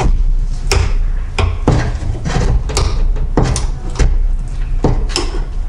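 Screwdriver prying at the metal band clamp on the rubber boot of a Honda S2000 CV axle held in a bench vise: about eight irregular sharp metallic clicks and clanks, over a low rumble.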